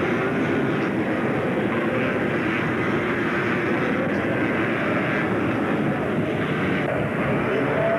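Engines of several three-wheeled ATVs racing on a dirt track, blending into one steady engine drone, with individual engines rising and falling in pitch as riders rev and ease off.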